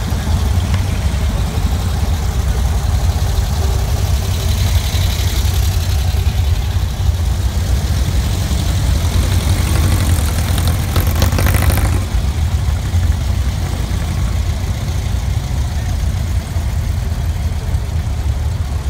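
Air-cooled Volkswagen engines idling and running at walking pace in a slow parade queue, a steady low rumble. A brief louder rasp comes about ten seconds in.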